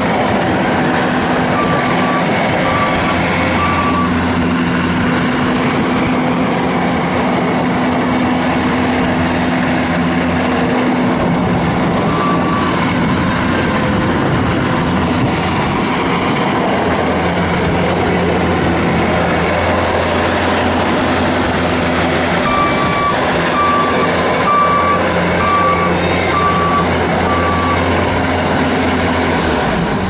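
2015 Bobcat S590 skid steer loader's 66 hp turbo diesel running steadily as the machine drives on gravel. Its backup alarm beeps in short runs: a few beeps about two seconds in, a single beep around the middle, and a longer run of about seven beeps near the end.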